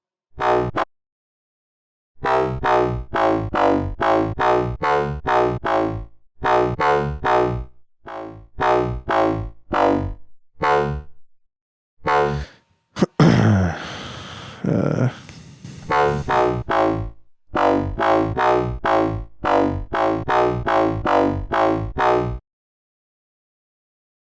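FM synthesizer bass patch from Sytrus playing runs of short, repeated notes with rich overtones, in phrases separated by brief gaps. About halfway through, a longer, noisier held sound with falling sweeps in pitch comes in for a couple of seconds.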